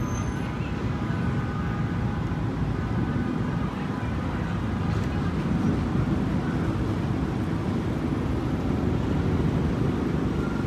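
Steady low rumble of city street traffic, with faint voices in the background.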